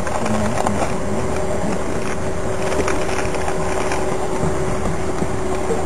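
A vehicle running with a steady hum and low rumble.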